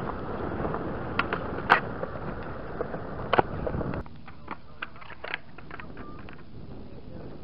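Skateboard wheels rolling on concrete, with a few sharp clacks of the board, the loudest about two seconds in. The rolling stops suddenly about four seconds in, leaving fainter scattered clacks.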